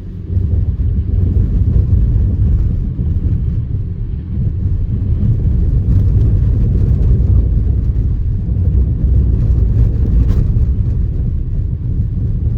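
Steady low rumble of a car driving, heard from inside the cabin: tyre and road noise on a snow- and slush-covered road.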